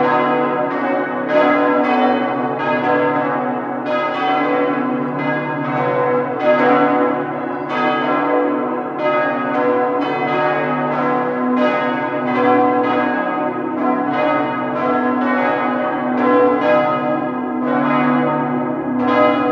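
Church bells pealing: bells struck one after another at about two strikes a second, each ringing on under the next so the tones overlap.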